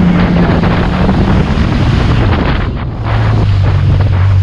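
Jet ski engine running under wind buffeting and water spray on the microphone. Its steady note fades into splashing noise after about a second, then comes back lower, at a slower speed, about three seconds in.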